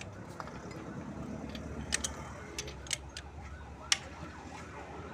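Scattered sharp metallic clicks and taps, about half a dozen, over a low steady hum. A siren's rapid up-and-down wail starts faintly near the end.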